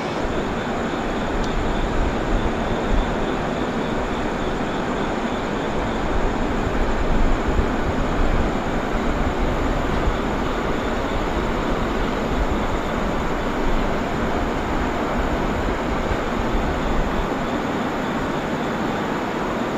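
Passenger train moving through the station, a steady rumble of wheels on rail that builds about two seconds in and eases off near the end.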